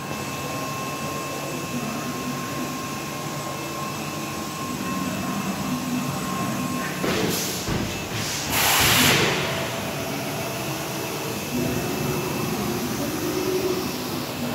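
Chiron FZ18W CNC vertical machining centre running a cycle behind its closed doors: a steady machine hum with a thin whine that stops about seven seconds in. Two loud hissing bursts come about seven and eight and a half seconds in, the second the louder.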